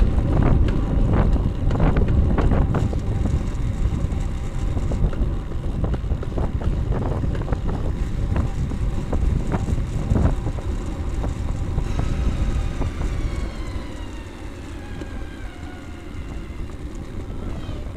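Wind buffeting the microphone of a rear-facing Cycliq bike camera, with tyre and road rumble, while the bike is ridden at speed. The noise comes in gusty surges and eases off in the last few seconds, with a few faint falling whistling tones.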